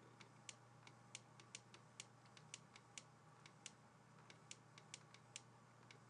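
Faint, irregular clicks of a stylus tapping on a tablet's writing surface while handwriting, about four a second over a quiet background.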